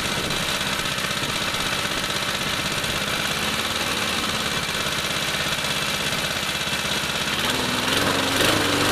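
Outils Wolf lawn mower engine running steadily; about 7.5 s in its pitch rises slightly and then settles back down. There is a short sharp knock near the end.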